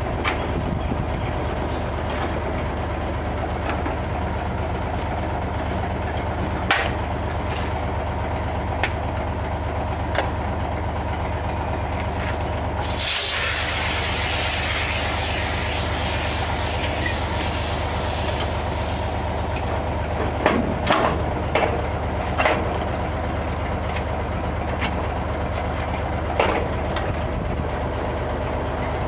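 Diesel engine of a ten-wheel dump truck idling steadily. About a third of the way in, a loud rush of compressed air starts suddenly and fades over several seconds as an air brake line to the trailer is uncoupled. A few sharp metal clanks come from the hose couplings and drawbar.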